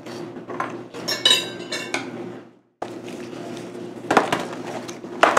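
Snack boxes and wrappers being handled on a wooden table: a short clinking rattle about a second in, then two knocks a second apart as a box is picked up and put down, over a low steady hum.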